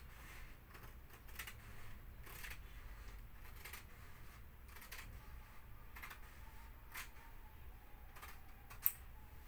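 Scissors snipping through a sheet of frosted privacy window film: a series of faint, irregular snips, with a sharper one near the end.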